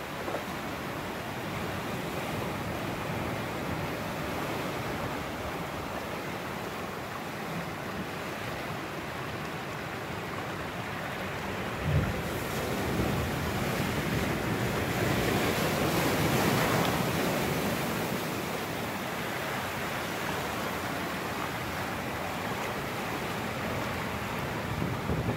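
Sea surf washing in over shoreline rocks, a steady rushing wash with wind buffeting the microphone. A brief thump comes near the middle, and the wash swells louder for a few seconds after it before settling again.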